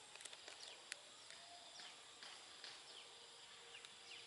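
Near silence outdoors, with faint short high chirps, each falling in pitch, repeating a few times a second.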